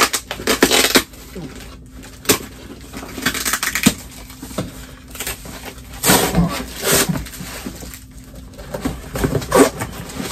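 Cardboard shipping box being opened by hand: tearing and rustling in irregular bursts, with a few sharp knocks and clicks in between.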